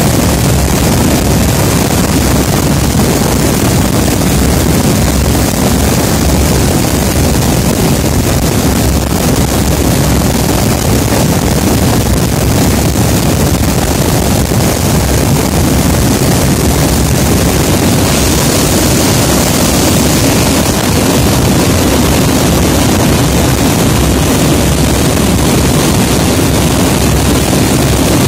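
Loud, steady noise of a C-130 Hercules' four turboprop engines and the rushing slipstream, heard from aboard the aircraft in flight, with wind on the microphone.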